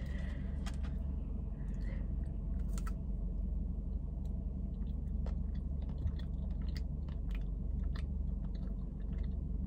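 Close-up chewing and biting of a chocolate-coated cheesecake on a stick, with many short, scattered clicks of the mouth over a steady low hum.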